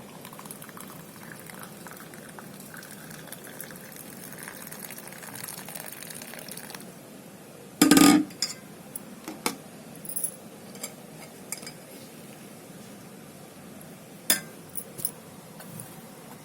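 A freshly boiled herbal decoction (kashayam) being poured, a faint steady trickle for the first several seconds. Then a loud knock about eight seconds in and a run of short clinks of glass and metal kitchen vessels, one louder clink near the end.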